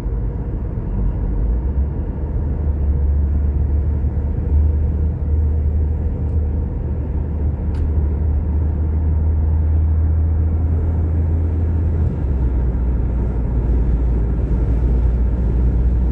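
Car driving at steady speed: a constant low rumble of road and engine noise.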